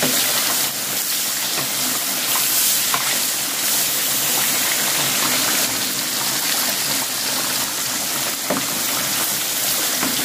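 Whole gourami deep-frying in hot oil in an aluminium wok: a steady sizzle, with a couple of light knocks of the spatula against the pan.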